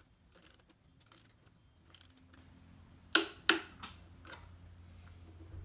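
Ratchet wrench clicking slowly as the motorcycle's rear axle nut is tightened, followed about three seconds in by a couple of louder, sharp clicks.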